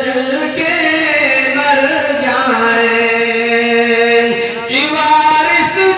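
A man singing a naat solo into a microphone, in long drawn-out notes that slide from pitch to pitch; one note is held steady for about two seconds in the middle.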